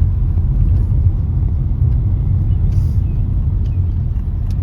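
Car on the move: a steady, loud, low road-and-engine rumble.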